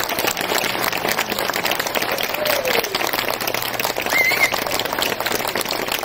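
Audience applauding steadily after a taiko drum performance has ended.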